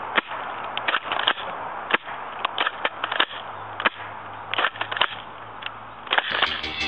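Irregular sharp clicks and clacks from handling a Crosman Stinger S32P airsoft shotgun, the sounds of it being reloaded, over a steady low hum. Music comes in near the end.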